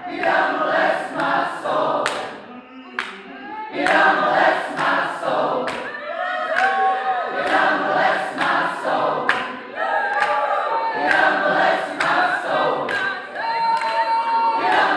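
A large mixed choir singing gospel a cappella, with hand claps on the beat about twice a second. The singing drops away briefly about two and a half seconds in, then comes back.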